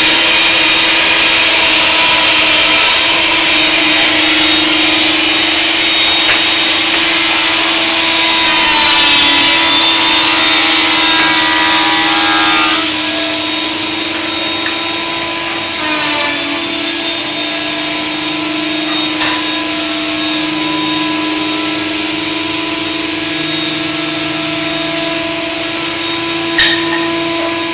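Woodworking shop machinery running with a steady hum, overlaid for the first twelve seconds or so by the loud hiss of a hand-held electric sander on wood; the hiss then stops, leaving the machine hum and a few light knocks.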